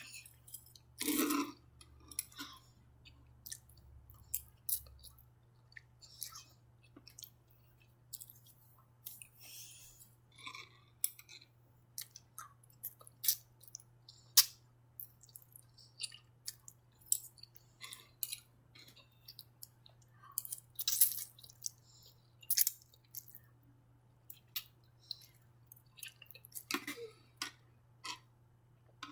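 Close-miked chewing and wet mouth sounds of someone eating Chinese takeout noodles and chicken: irregular smacks and clicks, with a louder burst about a second in and another near the end.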